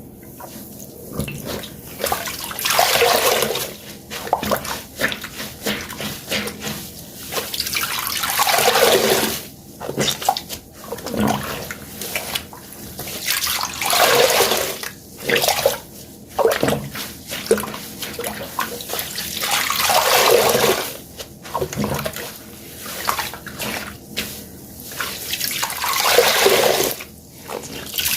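A water-soaked sponge squeezed again and again, water gushing out in a surge about every six seconds, with wet crackling and squelching in between.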